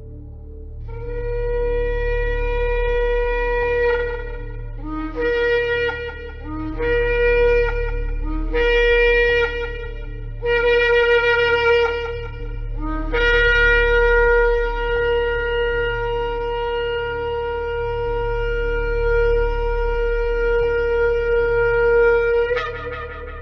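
Shofar (ram's horn) blowing: a long blast, then four shorter blasts that each start on a lower note and jump up, then a very long held blast of about nine seconds. A steady low hum lies underneath.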